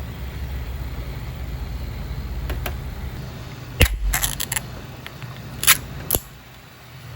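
A steady low rumble that drops away about four seconds in, with a handful of sharp clicks and clinks of small hard objects, loudest near the middle and again about a second later.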